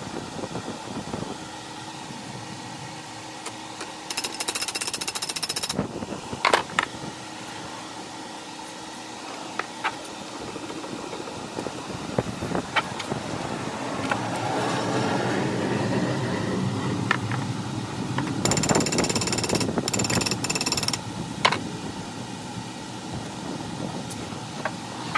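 Workshop power-tool noise: two short bursts of a tool hammering in rapid, even strokes, about four seconds in and again near the end, with scattered clicks and knocks between them.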